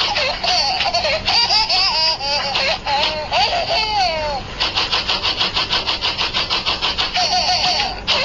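Loud, rapid laughter in quick regular pulses, with high, wavering squeals through the first half.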